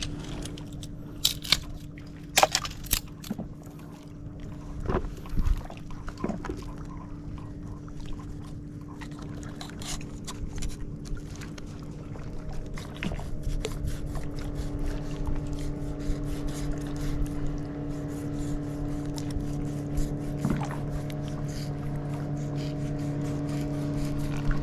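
Boat engine running at a steady pitch, growing louder about halfway through, with knocks and clatter in the first few seconds.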